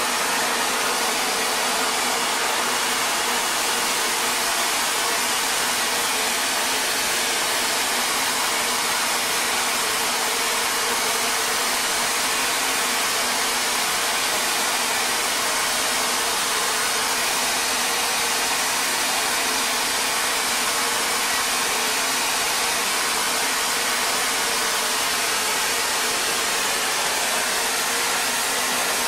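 Steady rushing hiss, even and unchanging, with a faint low hum beneath it.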